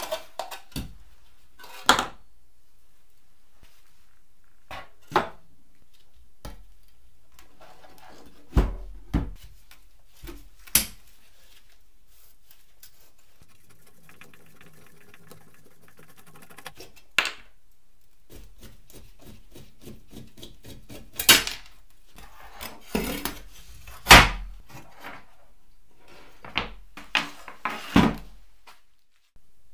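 Rusty metal parts and screws of an old filmstrip viewer being handled and set down on a wooden workbench: scattered knocks and clinks, the loudest about two-thirds of the way through. In the middle there is a quieter stretch of a screwdriver scraping at a screw.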